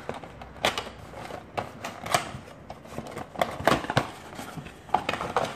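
A cardboard four-pack box of LED bulbs being opened and handled, with irregular crackles and sharp clicks of paperboard as the bulbs are pulled out.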